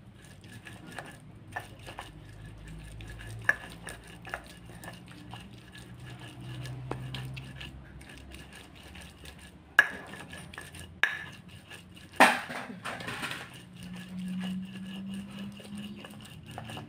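Stone pestle grinding spice paste on a flat volcanic-stone mortar (cobek and ulekan): a steady scraping rub broken by many sharp knocks of stone on stone, the loudest about ten and twelve seconds in.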